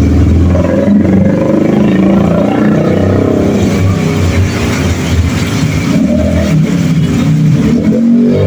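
Small motor scooter engines rising and falling in pitch as they ride past through floodwater, over the steady hiss of very heavy rain.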